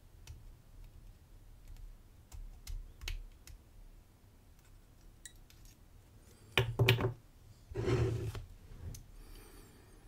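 Sargent XC lock cylinder being taken apart by hand with a plug follower: small metal parts click faintly, then a cluster of sharp clicks about six and a half seconds in and a short scraping rattle about a second later.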